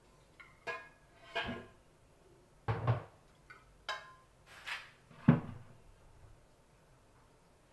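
A string of knocks and clatters from kitchenware being handled, about eight in all over five seconds. The loudest are two dull thuds, one about three seconds in and one a little after five seconds.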